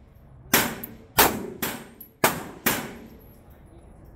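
Five 9mm pistol shots fired at an uneven pace about half a second apart, each a sharp crack with a short ringing tail. They stop about three seconds in.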